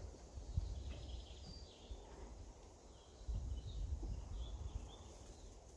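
Outdoor ambience: faint bird chirps over a low, uneven rumble.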